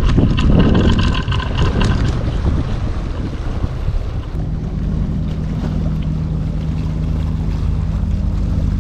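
Wind buffeting the microphone, strongest in the first two seconds, then a steady low hum that comes in about four seconds in and holds.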